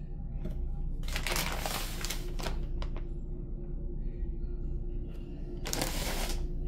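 Soft plastic wrapper of a baby wipes pack crinkling as it is handled, in a longer spell of crackles about a second in and a shorter one near the end, over steady background music.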